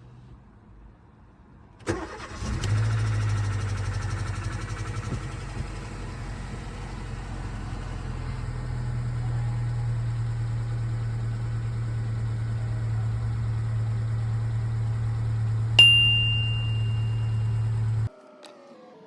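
Mercedes-Benz W169 A-Class engine cranking and catching almost at once, on its newly fitted battery, then settling into a steady idle. Near the end a sharp metallic ping rings briefly, and the sound cuts off suddenly.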